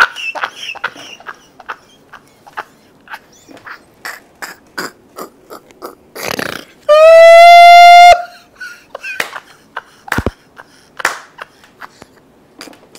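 A man laughing helplessly in short, breathy bursts. About seven seconds in comes a loud, high, held tone lasting about a second that cuts off abruptly.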